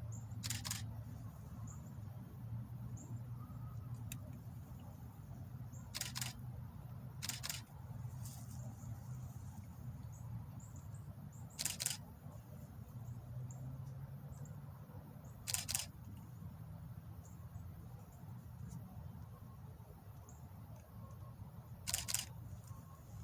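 Short crackling rustles from hands working in the tomato plants, six of them a few seconds apart, over a steady low rumble.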